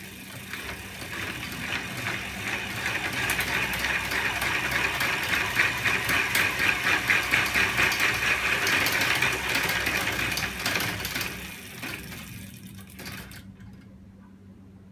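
Hand-cranked bicycle drive and a homemade magnet-arm mechanism spinning: a fast mechanical rattling clatter of chain, sprockets and moving parts. It builds up, then dies away about twelve seconds in as the wheel slows.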